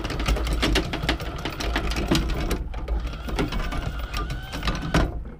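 Anchor windlass hauling in the anchor chain: a steady low hum with rapid clicking of the chain links, while the anchor comes up onto the bow roller. The sound cuts off near the end.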